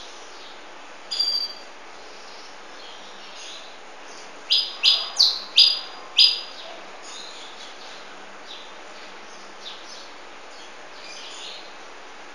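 Canary (Belgian canary) calling: a quick chirp about a second in, then five loud chirps in a row, each sweeping down in pitch, with a few faint chirps near the end.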